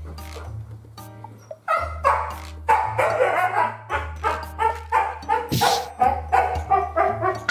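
Siberian husky vocalizing in a rapid run of short, pitched yips and barks, about three a second, beginning a couple of seconds in. One harsher, noisier burst comes a little past the middle. Background music with a steady bass line runs underneath.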